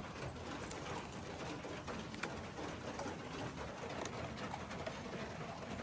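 Cooing of pigeons or doves over a steady background hiss with scattered faint ticks.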